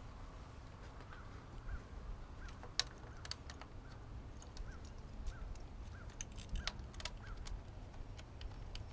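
Light clicks and taps of plastic and metal parts being handled on the engine, the loudest about three seconds in, with a small bird chirping about ten times in the background, short rising-and-falling chirps spaced under a second apart.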